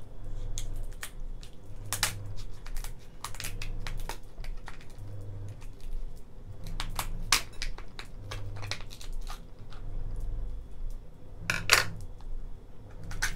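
Kitchen scissors snipping and cracking through the shell of a boiled lobster's legs: a run of irregular sharp snaps, the loudest near the end. The shell is not very hard.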